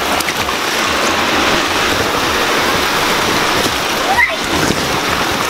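Steady rushing spray of water on the inflatable waterslide. A child gives a short high-pitched squeal about four seconds in.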